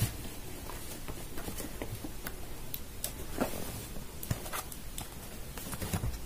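Cardboard retail box being handled and turned over in the hands: scattered faint taps and rubs of fingers and cardboard, at irregular intervals.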